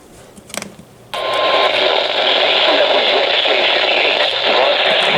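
Weather radio receiver hissing with loud static that starts suddenly about a second in, with a short steady tone as it starts. The static comes from the Venice WWG59 broadcast being stepped on by the Belle Glade WXJ58 transmitter on the same channel.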